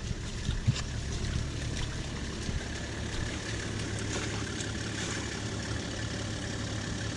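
A four-wheel-drive's engine idling steadily, a low even hum, with a few faint knocks.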